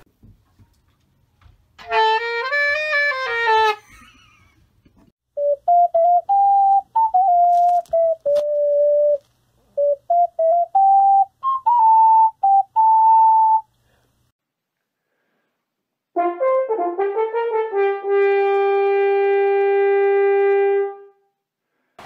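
A brass-like wind instrument played in three passages: a wavering note about two seconds in, a short tune of separate notes from about five to fourteen seconds, and a long held note near the end.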